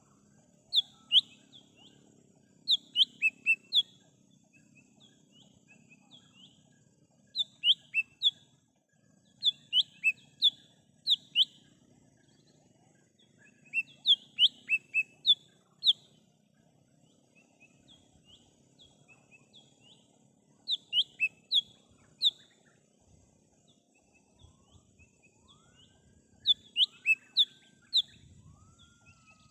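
A cucak hijau mini (lesser green leafbird) singing: sharp, high, down-slurred notes in quick runs of three to six, repeated every second or two with short pauses between runs.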